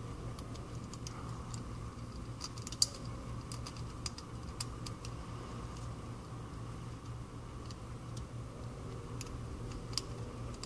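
Scattered light clicks and ticks of small repair tools and parts being handled on an iPhone 5c's internals, one sharper click about three seconds in, over a steady low hum.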